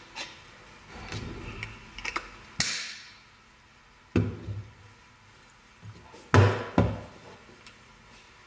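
Stainless steel salt and pepper grinder being handled: light clicks and rattling, then several knocks as it is set down and tipped on a wooden tabletop. The loudest are two knocks close together a little past halfway.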